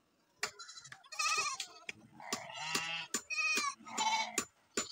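Goats bleating: several wavering bleats one after another, with sharp clicks and knocks between them.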